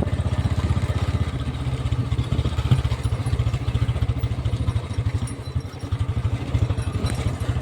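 Old Royal Enfield Bullet single-cylinder engine running with a steady, rapid firing beat and a sharper pop about three seconds in: the engine is misfiring.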